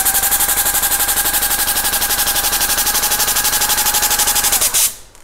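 Cut-pile tufting gun with compressed-air yarn feed running under the trigger: a loud, rapid, even clatter of the needle driving yarn through the backing fabric while the blade cuts each loop, over a steady whine. It stops abruptly about five seconds in.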